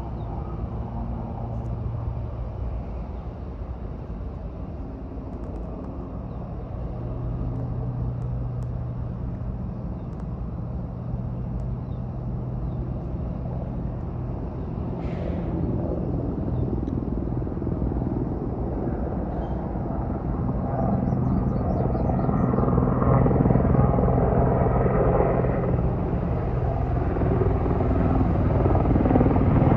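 Firefighting aircraft droning overhead, a steady engine drone that grows louder over the last ten seconds as it comes closer.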